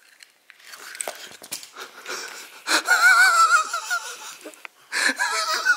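A person's high-pitched, wheezing vocal sound with a fast-wobbling pitch, starting about halfway in and coming again near the end, after a few seconds of soft rustling and small ticks.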